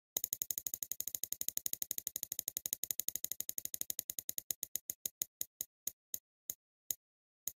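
Spinning prize-wheel ticking sound effect: rapid clicks, about a dozen a second, slowing steadily to single ticks near the end as the wheel comes to a stop.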